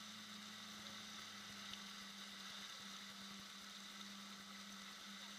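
Jet ski engine running steadily under way, a constant low drone with an even hiss of water spraying off the hull.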